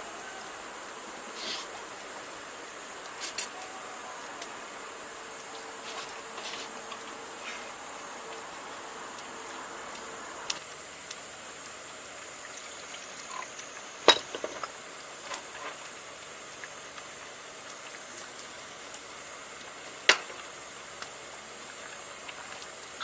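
Insects droning steadily at a high, constant pitch, with a few sharp clicks or knocks, the loudest about 14 and 20 seconds in.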